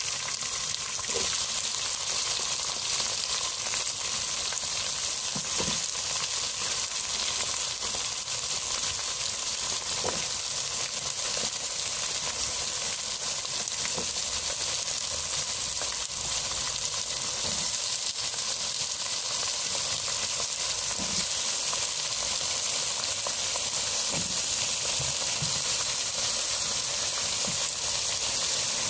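Gourd and brinjal pieces sizzling as they fry in oil in a pot, a steady hiss with a few faint ticks now and then.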